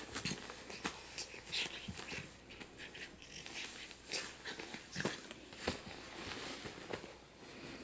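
Seven-week-old goldendoodle puppy snuffling and breathing as it mouths and paws at a cloth object, with many small rustles and clicks of the bedding.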